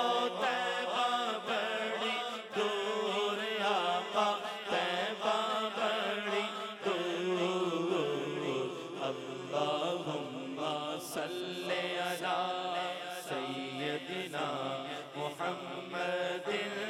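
A man singing a naat, an Urdu devotional song, into a microphone in drawn-out melodic phrases over a steady low hum.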